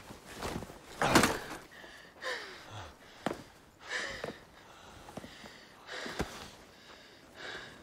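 Quiet, scattered rustles and a few soft clicks and knocks of people moving in leather and mail armour and heavy robes. The loudest rustle comes about a second in.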